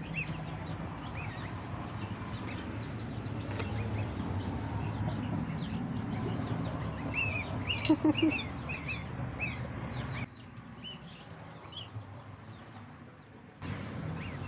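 Goslings and ducklings peeping: short, high, arched chirps scattered throughout, thickest around the middle. Beneath them is a steady low rumble that drops away for about three seconds near the end.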